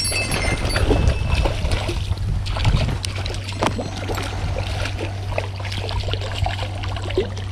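Running and splashing river water as a hooked white-spotted char is played on light lure tackle, with irregular small splashes and knocks throughout over a steady low rumble. A brief high-pitched whine comes right at the start.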